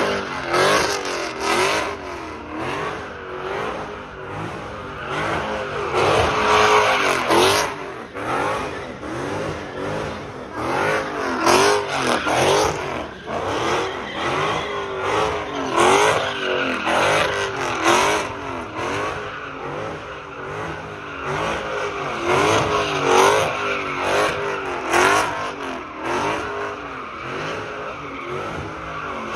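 Dodge Challenger SRT's V8 revving hard through donuts, its pitch rising and falling again and again about every second or two, over the noise of the rear tires spinning on the asphalt.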